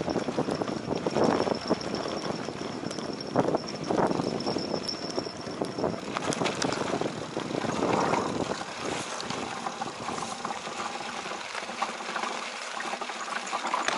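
Mountain bike riding over a bumpy dirt and grass track: a steady rush of tyre and wind noise with scattered clicks and rattles.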